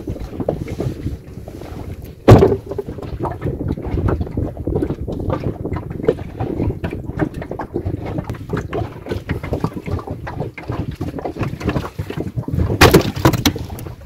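Wind buffeting the microphone in a small inflatable boat at sea, over irregular small knocks and handling noises. There is one sharp thump about two seconds in and a short cluster of loud knocks near the end.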